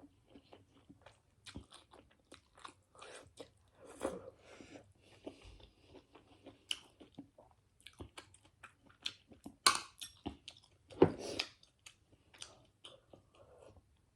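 Close-up mouth sounds of someone chewing a mouthful of Korean instant noodles: a run of small wet clicks and smacks, with two louder smacks a little before and after the ten-second mark.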